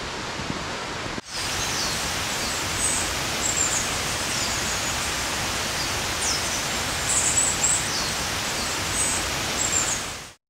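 Mountain stream running high after heavy rain, a steady rush of water, with small birds chirping briefly over it now and then. It stops abruptly near the end.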